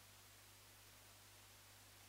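Near silence: a faint steady low hum with light hiss.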